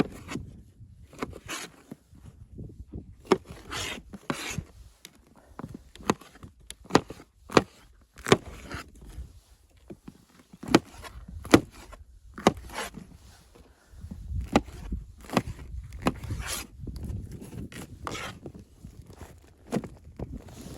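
Irregular sharp knocks and clicks with scraping and rubbing in between, like wood or gear being handled. A low rumble comes in about two-thirds of the way through.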